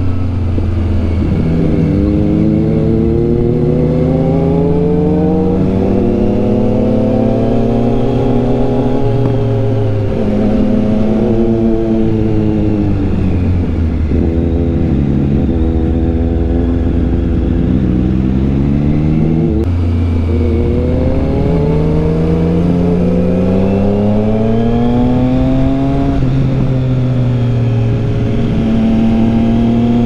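Motorcycle engine under way, heard from the rider's seat: its pitch climbs as it accelerates, then drops off as the throttle closes for the bends, several times over.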